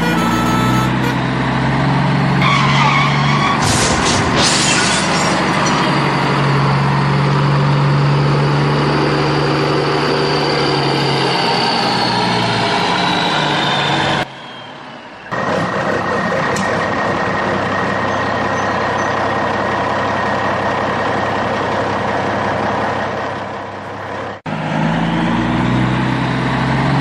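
A heavy vehicle engine running steadily with a low hum. The sound breaks off abruptly about halfway through and again briefly near the end, like spliced engine sound effects.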